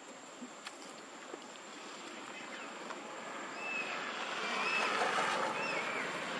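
A road vehicle approaching, its noise building steadily from about two seconds in, with a few short high chirps heard over it near the middle.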